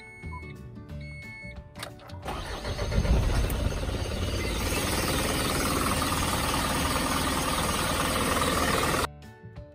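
Isuzu Elf truck engine cranking and catching about two seconds in, then running steadily, started for the first time on fresh oil after an oil change. The engine sound cuts off abruptly near the end, with background music before and after it.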